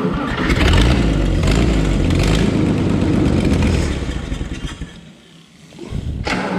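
Power Horse farm tractor's engine running, then dying out about four to five seconds in. After a short lull, a sharp click and the engine noise start up again near the end.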